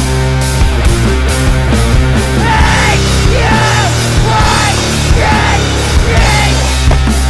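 Loud hard-rock music with a steady beat.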